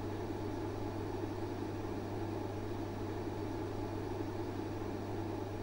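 Steady room tone: a constant low electrical hum under an even hiss, with no distinct events.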